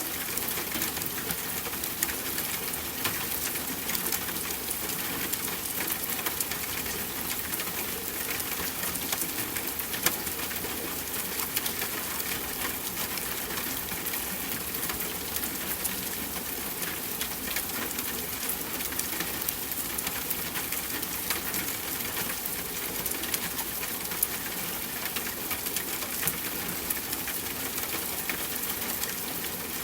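Steady rain falling, an even hiss dotted with many sharp ticks of single drops hitting a surface.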